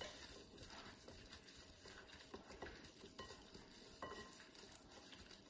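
Gloved hands tossing oiled, seasoned potato wedges in a glass bowl: a faint, soft wet shuffling with scattered light clicks of wedges against each other and the glass.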